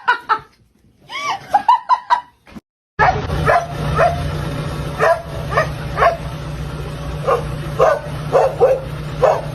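A dog barking in a run of short, high yips at uneven spacing, starting about a third of the way in, over a steady low hum.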